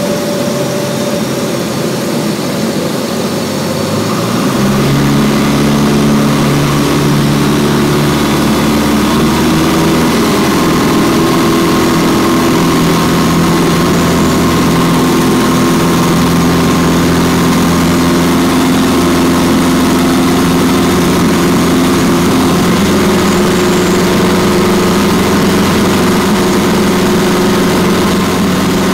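Light single-engine propeller airplane's engine and propeller running, with air noise, heard from inside the cabin. About four and a half seconds in it grows louder and takes on a steady engine drone, then holds steady.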